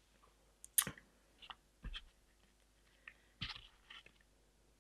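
A handful of short, sharp clicks and taps from small objects being handled, the loudest about a second in, with quiet between them.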